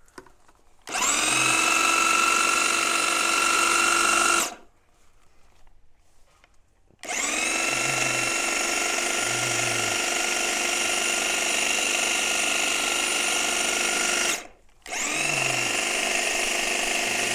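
Bosch AdvancedHedgeCut 70 corded electric hedge trimmer cutting a privet hedge. It runs in three goes, about a second in, about seven seconds in, and again after a brief stop near the end. Each time it speeds up to a steady high whine.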